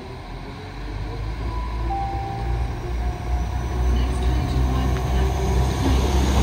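West Midlands Railway Class 196 CAF Civity diesel multiple unit running past close by along the platform. Its low rumble grows louder as it nears and draws alongside, with a few faint high squeals early on in the pass.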